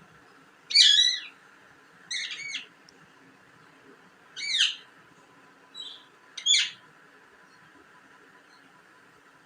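Pet parrot chirping: four loud, short, sharp calls and one faint one, a call every one to two seconds.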